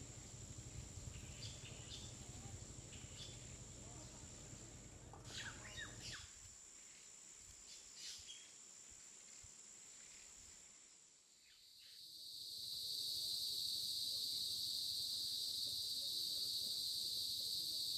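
Birds chirping now and then over a steady high insect drone and a low rumble. About eleven seconds in this fades and gives way to a louder, steady night insect chorus buzzing at two high pitches.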